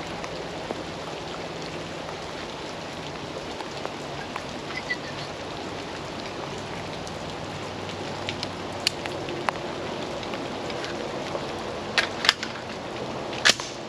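Steady heavy rain falling, with a few sharp clicks and knocks in the last few seconds, the loudest two about a second and a half apart near the end.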